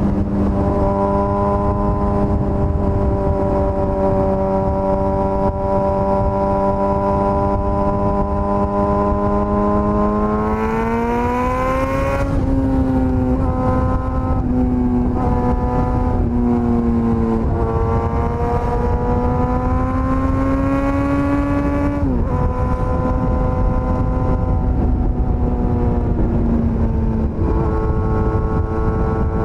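Suzuki GSX-S1000's inline-four engine running at steady revs, then revving up twice, each climb ending in a sudden drop in revs.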